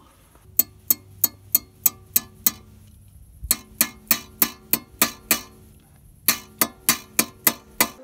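A metal hand tool knocking repeatedly on the car's underbody sheet metal and bracket by the gearbox. The knocks are sharp and ringing, about three a second, in three runs with short pauses between.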